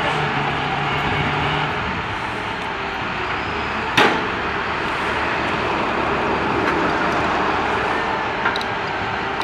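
Utility truck engine running steadily, with one sharp, loud bang about four seconds in and a smaller click near the end.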